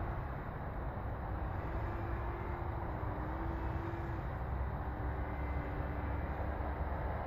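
Steady wind rumble on the microphone, with a faint wavering hum that rises and falls in pitch.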